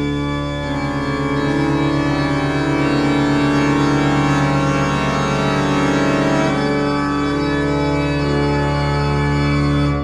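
Organ music playing held chords, with a rapidly pulsing low note coming in about a second in.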